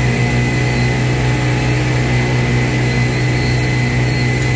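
Fire truck's diesel engine running steadily, a loud, constant low hum.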